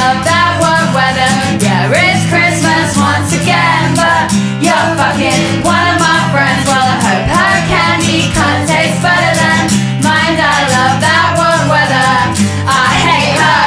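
Live pop song: a woman singing lead into a microphone over acoustic guitar, with a group of backing singers.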